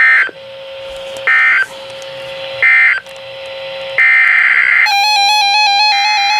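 NOAA Weather Radio EAS data tones: three short buzzing end-of-message bursts about 1.3 s apart, with a steady hum between them. About 4 s in, a longer data burst starts the SAME header of the next alert. Near the end, a weather radio's alternating alarm tones begin over a further header burst.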